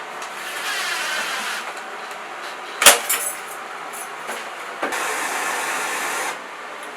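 A sharp, loud bang about three seconds in, with a smaller knock later, amid stretches of hissing noise.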